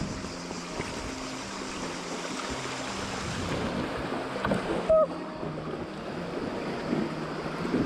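Shallow river rapids rushing and splashing around an inflatable kayak, with wind buffeting the microphone. About five seconds in comes a single short, loud squeak.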